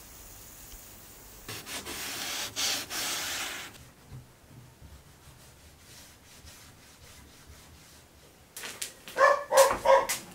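A cloth rubs on a window pane in a few quick strokes for about two seconds. Near the end a dog yelps several times, short and high.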